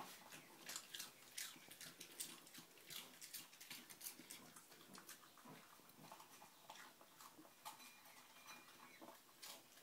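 A small dog crunching dry kibble from a plastic bowl: faint, irregular crunching clicks that thin out around the middle, when it lifts its head, and pick up again near the end.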